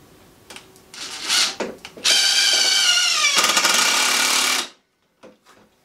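Cordless drill driving a star-drive screw into a wooden cross member: a brief blip, then a run of about two and a half seconds whose whine drops in pitch as the screw bites and tightens, stopping abruptly.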